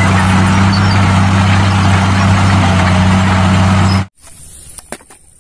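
Crawler bulldozer's diesel engine running under load, a steady low drone with a constant hum. It cuts off abruptly about four seconds in.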